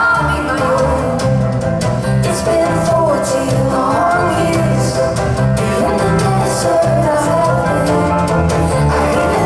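Live band music: a woman singing lead over electric guitar and a steady, pulsing bass line.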